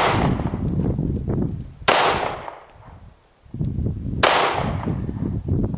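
Three single pistol shots from a Glock 26 9mm handgun, fired slowly about two seconds apart, each with a short fading echo.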